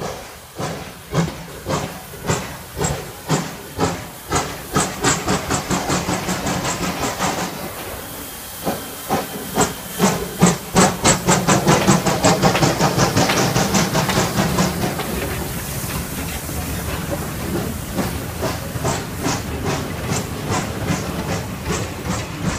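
Steam locomotive pulling away, its exhaust chuffs quickening from about two a second to four or five a second, with steam hissing. The chuffs are loudest as the engine passes close by, about ten to fourteen seconds in. After that come the steady rumble and clatter of the wagons rolling past.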